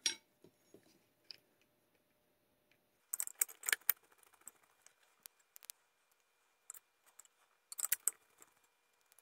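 Faint small metal clicks and clinks of a hex driver and screws being fitted into an RC truck chassis's top plate, in two short clusters: one about three seconds in and one near the end.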